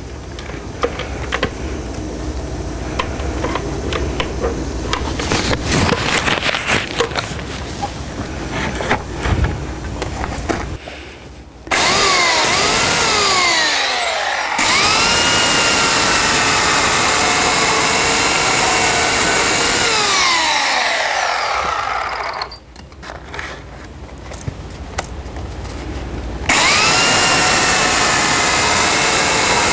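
Corded Titan electric chainsaw cutting a log. The first dozen seconds hold only scattered clicks and rustling, then the motor starts suddenly with a whine and cuts, its pitch sliding and sagging as the chain bites. About 22 s in it winds down, then starts again suddenly near the end.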